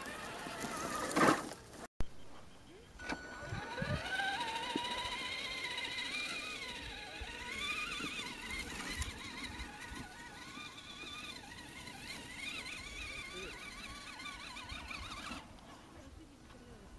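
Traxxas Summit RC crawler's brushed electric motor and drivetrain whining. The pitch rises steeply about three seconds in as it accelerates, then wavers up and down with the throttle while climbing, and it cuts off suddenly near the end. A loud knock about a second in.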